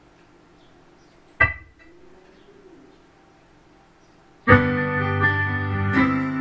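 A short sharp click with a brief ring about a second and a half in. About four and a half seconds in, a keyboard backing track starts suddenly and loudly, with a steady bass and held chords.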